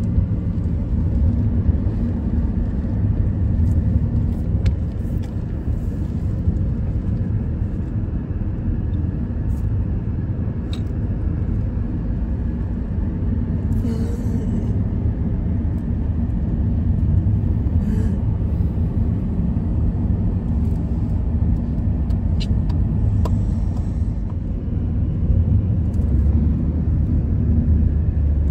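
Steady road and engine rumble of a car driving at speed, heard from inside the cabin, with a few faint clicks scattered through it.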